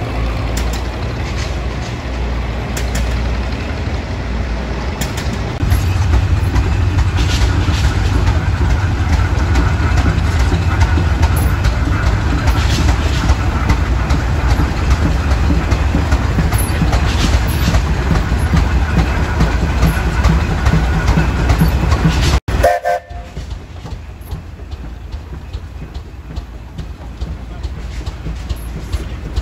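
Heavy vintage machinery running with a steady low rumble, growing louder about six seconds in as an A.D. Baker steam traction engine and old tractors pass on parade. Near the end the sound cuts off suddenly and a quieter machine keeps running with faint regular ticks.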